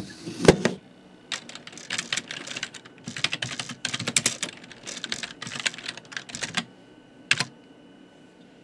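Typing on a computer keyboard: a thump about half a second in, then a fast run of key clicks for about five seconds, and one more single keystroke near the end.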